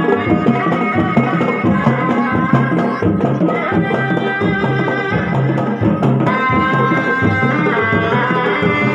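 Sundanese Reak ensemble music: barrel drums beating a rhythm under a high, sustained melody line that bends slightly in pitch.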